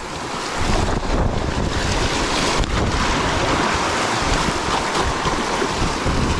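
Fast, shallow river water rushing and splashing around a kayak in small rapids, with wind buffeting the microphone in a low rumble.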